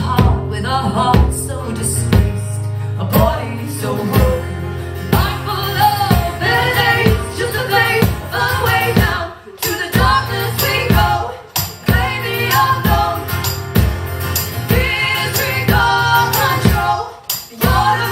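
Live band music: singing over a sustained instrumental backing with a steady beat.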